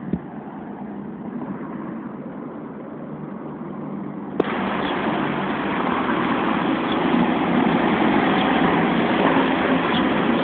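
Steady low mechanical rumble of a running engine; it steps abruptly louder with a click about four seconds in.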